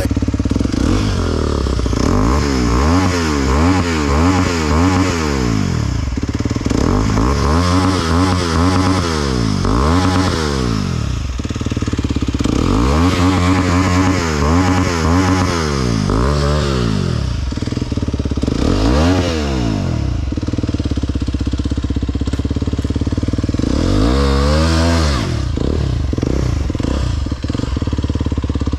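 Aprilia RX 125 motorcycle engine revved in quick throttle blips, about five bursts of rising and falling revs with idling in between.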